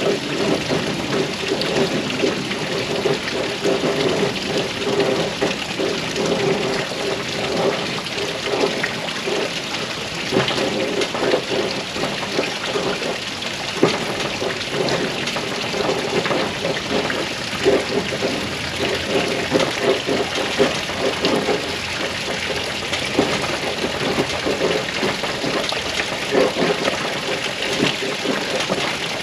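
Steady wash of splashing water, with a knife scraping curls off a wooden feather stick in repeated strokes.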